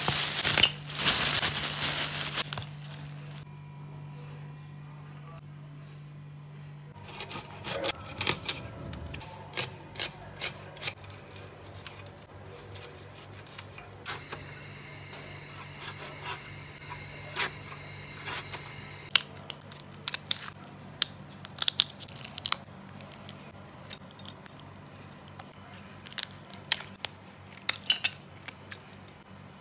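Thin plastic bag rustling for the first couple of seconds, then a long run of irregular sharp snips and clicks from a knife and scissors trimming onions and green chillies and cutting through raw prawn shells. A low steady hum runs underneath.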